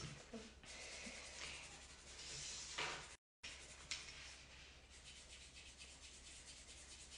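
Pen scratching back and forth along a ruler on paper as straight lines are drawn, a quiet series of rubbing strokes. The audio cuts out completely for a moment about three seconds in, and a single click follows.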